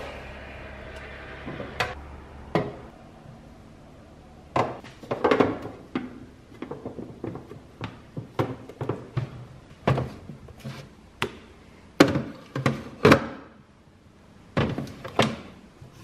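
Irregular thunks and knocks of kitchen work, as bags, containers and food are handled and set down on a counter, some in quick clusters.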